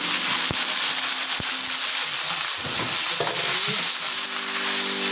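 Chicken pieces frying in hot canola oil with garlic, a steady sizzle, with two sharp knocks about half a second and a second and a half in.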